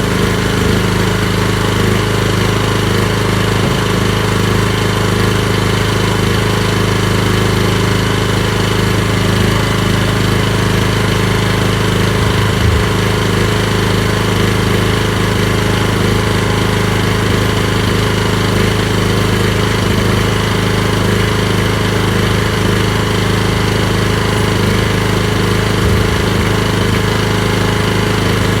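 Briggs & Stratton portable generator's petrol engine running steadily at a constant speed.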